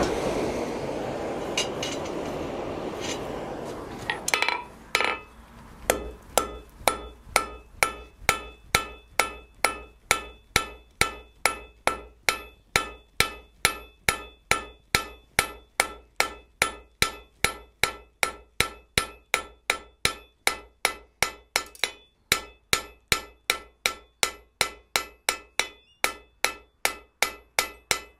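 Blacksmith's hand hammer striking a red-hot iron bar on an anvil, flattening its end for an arrowhead's socket: steady blows about two a second, each with a short metallic ring from the anvil. For the first four seconds before the hammering starts, a steady rushing noise from the forge hearth as it is blown.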